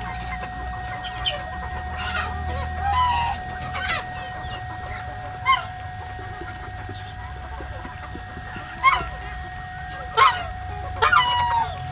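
Chickens in a mixed poultry flock clucking and calling in short separate bursts every second or few, with a longer held call near the end. A steady faint tone runs beneath.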